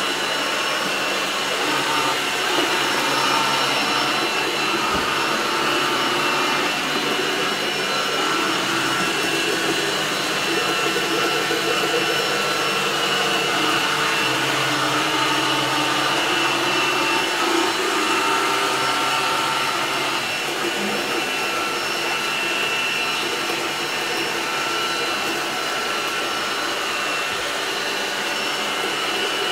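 Xrobot XR 510C robot vacuum cleaner running, a steady whir with a thin high whine.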